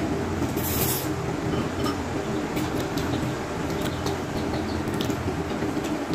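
Steady hum of an electric air cooler's fan running, under scattered light clinks of spoon and chopsticks on bowls. A short hiss comes about half a second in.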